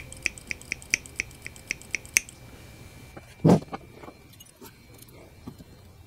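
Pliers and the steel pedal assembly of a 1969 VW Beetle being handled while the pivot pin is fitted. A run of light clicks, about four a second, lasts for the first two seconds. A single thump comes about three and a half seconds in, followed by faint handling noises.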